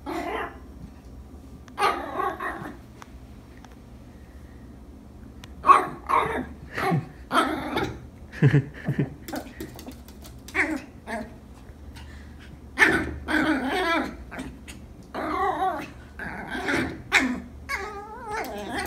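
A puppy barking and growling at its own reflection in a mirror: a couple of short barks at first, then a quick run of high yaps and growls from about six seconds on.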